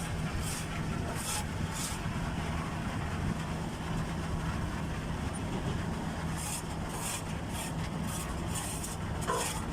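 Concrete mixer truck's diesel engine running steadily with a low hum, with short hissing noises now and then, more of them in the second half.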